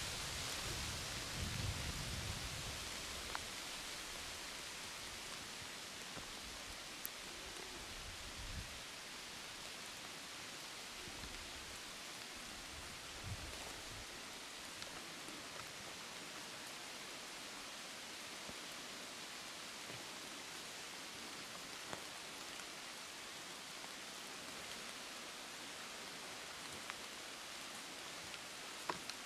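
Steady rain falling in the woods, a even hiss with scattered faint drips. A low rumble at the start dies away over the first several seconds.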